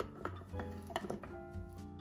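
Background music with a steady low beat, over a few light plastic clicks as a clear lid is fitted onto a food processor bowl.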